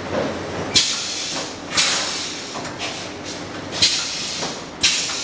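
Automatic shrink-wrap sealing machine running on a packing line, with four sharp air hisses in two pairs, each pair about a second apart, as its pneumatic sealing jaw cycles.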